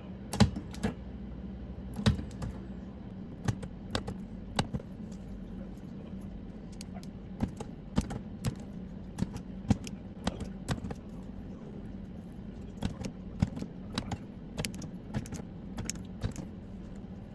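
Battery spot welder firing again and again as nickel strip is welded onto Ni-Cd cells: sharp irregular snaps, sometimes several in quick succession, over a steady low hum.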